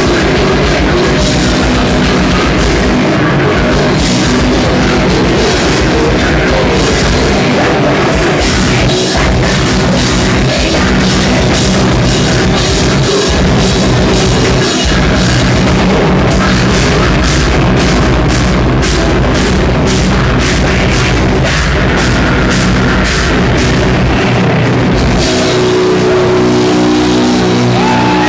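Metal band playing live: heavily distorted electric guitars and bass over fast, dense drumming on a drum kit. About 25 seconds in, the drums stop and a held guitar chord rings on.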